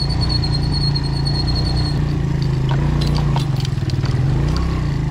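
Big-bore motorcycle engine running steadily at low revs. A thin high whine stops about two seconds in, and a few sharp clicks and knocks come in from about three seconds in.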